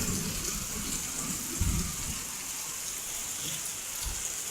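Torrential rain pouring down in a steady, even hiss. A brief low thump about one and a half seconds in.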